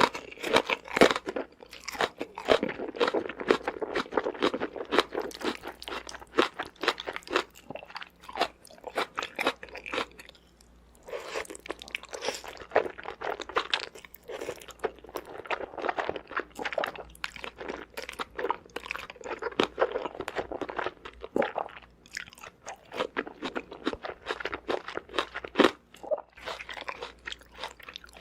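Close-miked chewing and biting of crunchy food: dense runs of crisp crunches, broken by short pauses about ten seconds in and again a little past twenty seconds.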